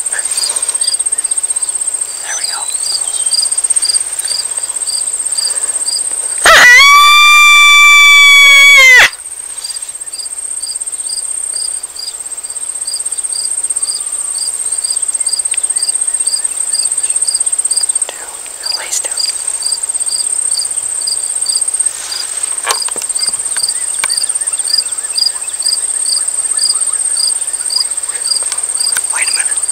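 Insects trilling steadily, with a second insect pulsing about twice a second. About six seconds in comes one loud howl from a coyote call, about two and a half seconds long, held level and then dropping in pitch at the end.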